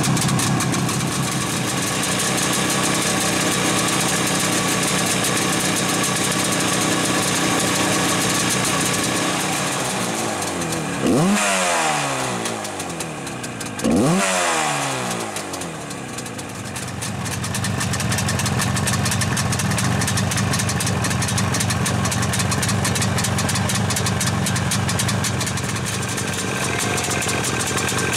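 Classic Yamaha twin-cylinder motorcycle engine idling steadily, with two quick throttle blips near the middle, a few seconds apart, each rising and falling in pitch before it settles back to idle.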